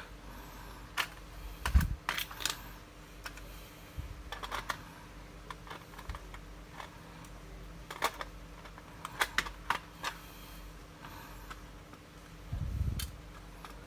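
Irregular small clicks and taps of a Canon EOS 60D camera body and its parts being handled, with the battery taken out for reassembly. The loudest is a dull knock about two seconds in.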